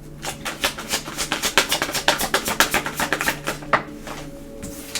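Tarot cards being shuffled: a quick run of crisp flicking clicks that stops about four seconds in. Soft background music plays underneath.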